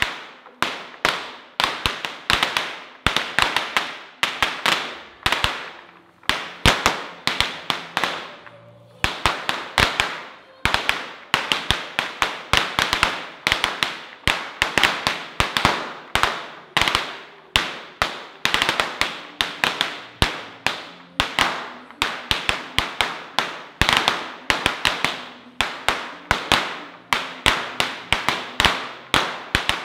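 Firecrackers going off in a rapid, irregular string of sharp bangs, several a second, with a short lull about eight seconds in.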